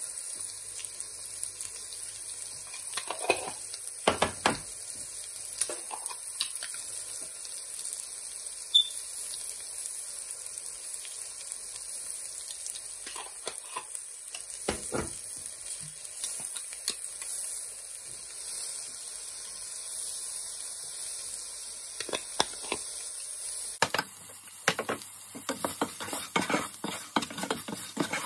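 Sliced onions and green chillies sizzling in oil in a non-stick pan, with a steady high hiss. A wooden spatula scrapes and taps the pan now and then. About four seconds before the end, the sizzle drops and the spatula scrapes come thick and fast.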